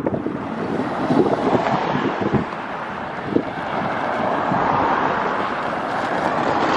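Strong gusty wind buffeting the microphone: a loud, steady rush with occasional low thumps, swelling about halfway through.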